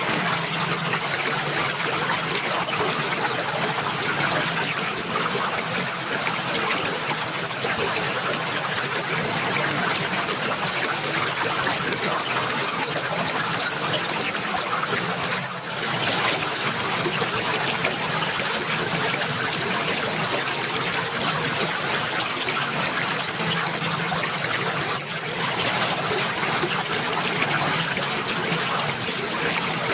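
Running water trickling and splashing steadily, with two brief dips in level, about halfway and near the end.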